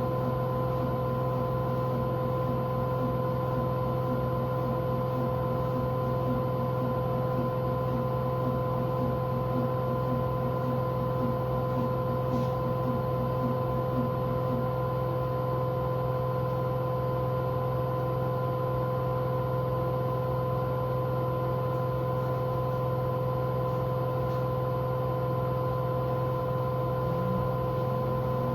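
Washing machine drum spinning at its maximum spin speed: a steady motor hum with a constant whine. A fast pulsing in the hum fades out about halfway.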